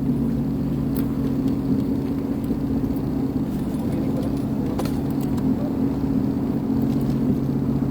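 Sea-Doo FishPro personal watercraft engine running at a steady speed, a constant low hum that does not change in pitch.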